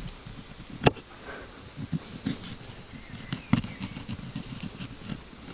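A knife scoring a whole plaice on a wooden cutting board: light ticks and a few sharp knocks of the blade on the board, the sharpest about a second in.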